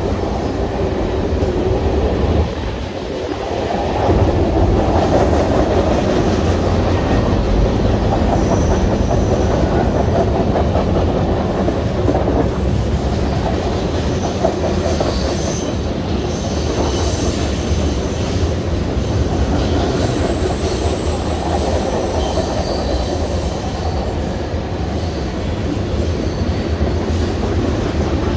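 Freight cars of a CN train rolling past on curved track, with a steady loud rumble of steel wheels on rail. Faint high-pitched wheel squeals come and go through the middle, and the sound dips briefly a few seconds in.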